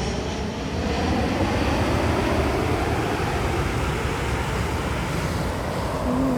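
Jet airliner flying low overhead: a steady, loud rumble with a hiss whose upper part thins out near the end as it passes.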